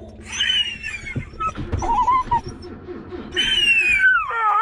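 Cocker spaniel whining in high cries that fall in pitch: one just after the start, a short one around two seconds in, and a longer one near the end that drops lower and is drawn out.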